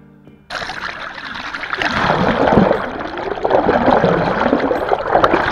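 Water rushing and gurgling around a camera held underwater at a sailing yacht's stern. It starts abruptly about half a second in and grows louder.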